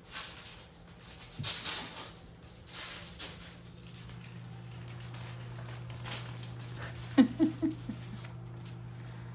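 Munchkin cat giving a quick run of four short, low grumbling sounds about two-thirds of the way through, a complaining cat's mutter. Before that come soft rustling and shuffling noises, and a steady low hum runs underneath from a few seconds in.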